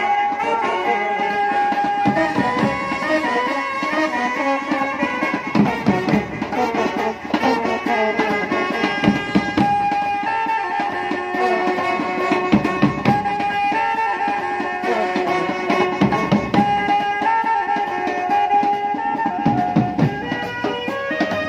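Indian brass band (band baja) playing a melody on trumpets and brass horns with long held notes, over snare and bass drums.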